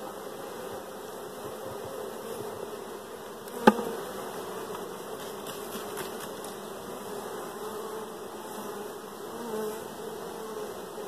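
Honey bees buzzing at a hive: a continuous hum that wavers slightly in pitch. A single sharp click about three and a half seconds in.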